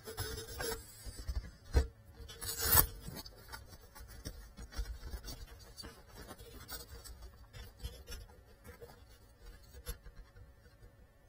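Knocks of a small FPV drone hitting furniture and the floor as it crashes, the two loudest about a second apart two to three seconds in; after that the drone lies still and only faint crackle is heard.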